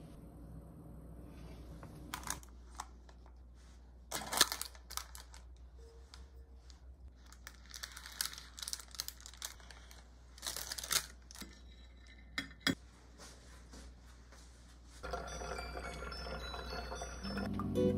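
Parchment paper crinkling and tearing in short bursts as it is handled and peeled away from a baked cheesecake. Near the end comes a steady rush of water running from a dispenser into a plastic watering can, and acoustic guitar music begins just at the close.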